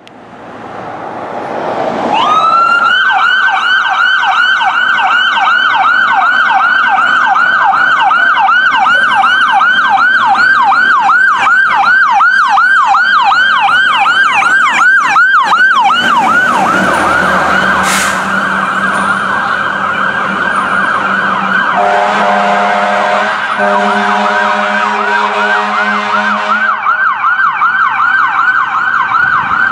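Fire engine siren winding up, then wailing in fast up-and-down sweeps several times a second. After about 16 s a steady high siren tone holds under lower, deeper horn blasts, strongest between about 22 and 26 s, before the fast sweeps return near the end.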